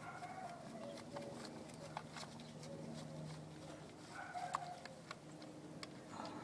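Faint scattered clicks and light scrapes as a screwdriver backs a small screw out of a power door lock actuator's plastic housing, with a couple of brief squeaks.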